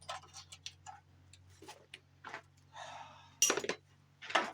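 Hand tools clicking and clinking on metal while a valve cover bolt is worked loose on a Dodge 318 V8, with a short scrape about three seconds in and the loudest clicks near the end.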